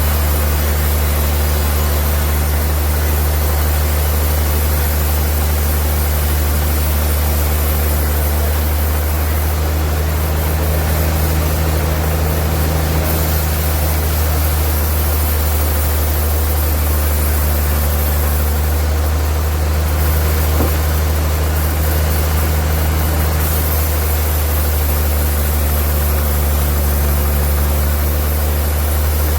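Sawmill machinery running with a steady low drone and an even mechanical noise above it, unchanging throughout.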